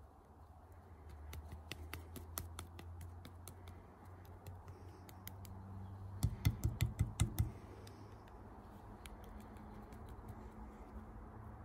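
Hands working a lump of soft clay: small scattered clicks and squishes of kneading, then about six seconds in a quick run of about eight low pats as the clay is patted into shape. A faint steady low hum runs underneath.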